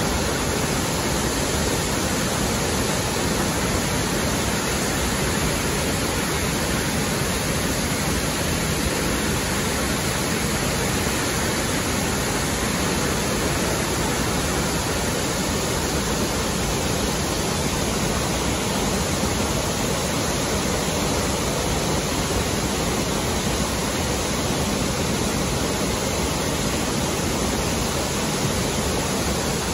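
Burney Falls, many streams of water falling down a cliff into a plunge pool: a steady, even rush of falling water.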